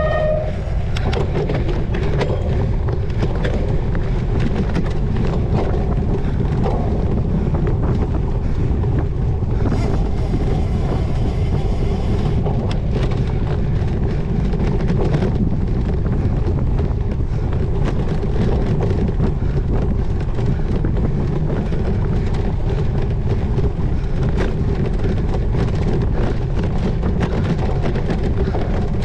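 Wind buffeting the microphone of a cyclocross bike racing over rough ground, with the rattle and clatter of the bike over bumps.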